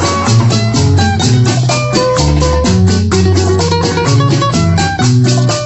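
Instrumental music with a fast, even beat of short strokes over a bass line, with plucked string notes on top.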